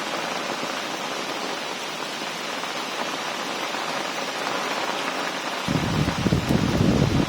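Heavy rain pouring steadily in a storm. About six seconds in, a choppy low rumble comes in on top of it.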